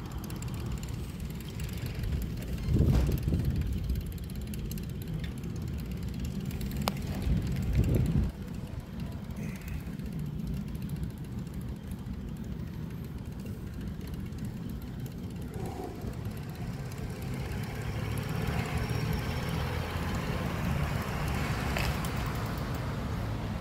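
Wind rumbling on a phone's microphone while riding along a street, with stronger gusts about three and eight seconds in and a single sharp click about seven seconds in. A hiss of tyres or passing traffic grows in the last third.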